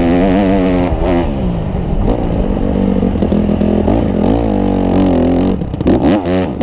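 Motocross bike engine revving hard under the rider, heard close up from on the bike. The revs rise and fall with throttle and gear changes, with a sharp drop about a second in and choppy throttle blips near the end as the bike slows.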